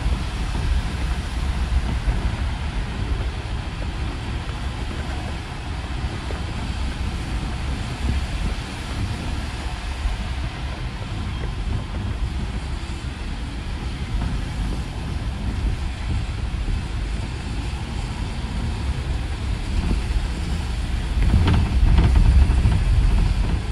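A city bus under way on a wet road, heard from inside: a steady low rumble with road and tyre noise, swelling louder for a couple of seconds near the end.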